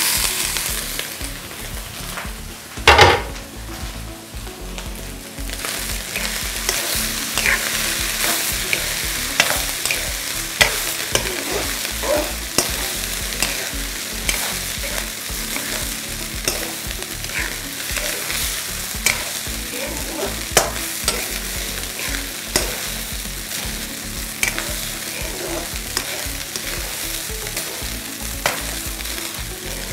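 Stir-frying in a wok: boiled rice is tipped onto sizzling vegetables and turned with a spatula. The frying hiss is steady under repeated scrapes and taps of the spatula against the pan, with one loud knock about three seconds in.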